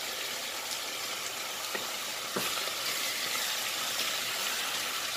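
Chicken pieces sizzling in hot oil in a nonstick wok. About two and a half seconds in, a wooden spatula knocks against the pan and starts turning the pieces, and the sizzle gets slightly louder.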